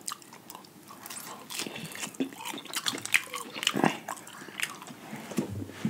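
Close-miked eating sounds from a seafood boil: irregular wet mouth smacks, chewing and small clicks, with no steady rhythm.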